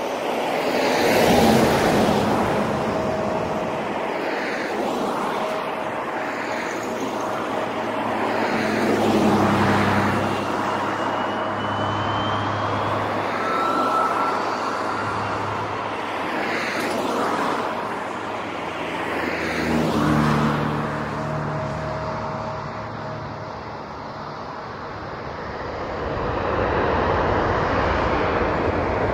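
Jet airliner's engines running through a takeoff roll in the distance, with a high thin whine that rises about ten seconds in. Road traffic noise swells and fades several times as vehicles pass.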